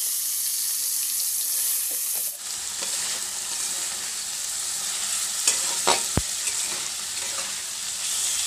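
Paneer cubes frying in hot refined vegetable oil in a metal kadai, a steady sizzle that turns softer about two and a half seconds in. A little past halfway a metal spatula stirring them scrapes and clinks against the pan a few times.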